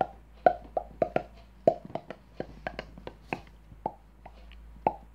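Mouth pops and clicks made with the lips and tongue, and hand at the mouth: a quick, uneven run of sharp hollow pops, a few a second, some much louder than others.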